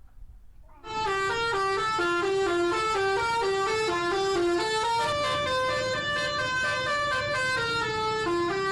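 Basuri telolet musical bus horn playing a quick tune of stepped notes, starting about a second in, with a few longer held notes in the second half.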